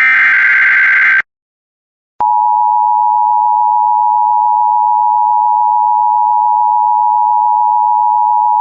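Emergency Alert System broadcast: an EAS (SAME) header data burst, a buzzing digital warble lasting about a second, then after a second of silence the steady two-tone EAS attention signal begins and holds.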